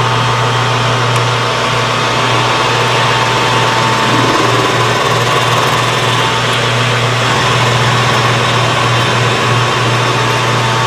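Metal lathe running steadily while its cutting tool faces the end of a spinning aluminum slug: a loud, even hum with a thin steady whine above it.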